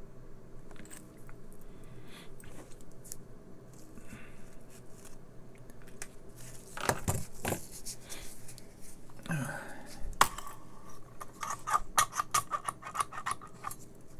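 Small tools and parts being handled on a workbench during an electronics teardown: scattered light clicks and a couple of scrapes, then a quick run of light clicks near the end.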